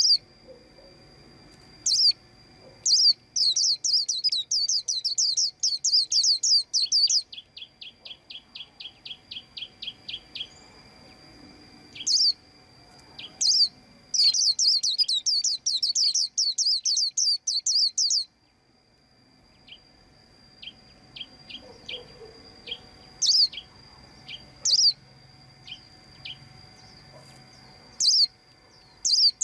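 White-eyes chirping: two bursts of rapid high trills of about four seconds each, the first followed by a run of evenly spaced lower notes, with single sharp calls scattered between.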